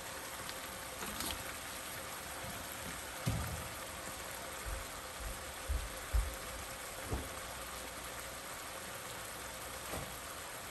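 Steady sizzling hiss of hot frying oil in a pan, going on after the burner has been switched off, with a few soft low knocks.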